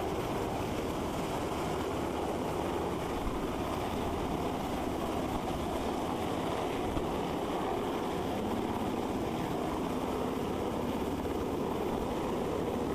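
Military helicopter hovering low overhead: steady rotor noise with the downwash blowing across the microphone.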